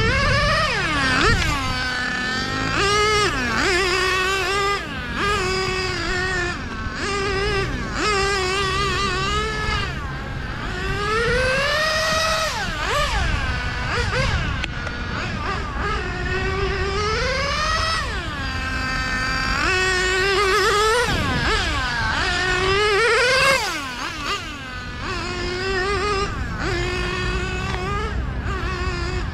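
OS Max R21 nitro engine of a Serpent 990 RC car revving hard as the car laps the track. Its high whine rises and falls again and again with throttle and passes.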